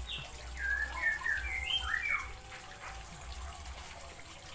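Water trickling steadily, with a quick run of short, high chirping calls in the first two seconds.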